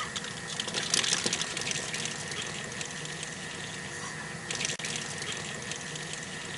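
Aerosol spray-paint cans hissing in short bursts over a steady background hiss, loudest about a second in.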